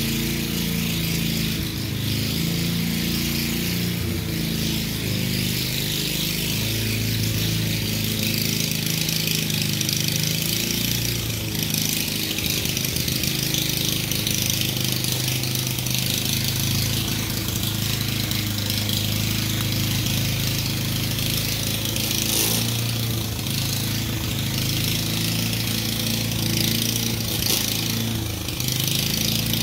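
An engine running steadily, its pitch shifting up and down now and then, with a steady hiss above it.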